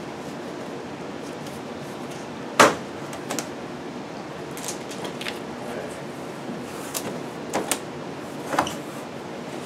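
Plastic strapping band on a large cardboard appliance carton coming loose with one sharp crack, followed by lighter clicks, knocks and scrapes as the carton's cardboard flaps are pulled open.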